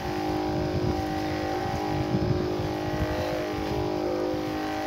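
Electric knapsack sprayer's motor-driven pump running steadily with a constant hum while spraying.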